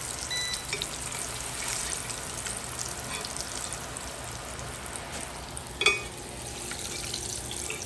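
Hot oil sizzling steadily in a stainless steel pan as coated pork tenderloin pieces are lifted out with a metal skimmer at the end of their second, high-heat fry. A single sharp metal clink rings out about six seconds in.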